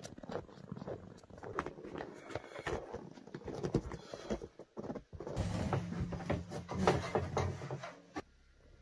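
Footsteps crunching through snow, then the knocks and scrapes of a steel barrel wood stove being rolled on its rim, with a louder rumbling stretch in the second half before it stops abruptly near the end.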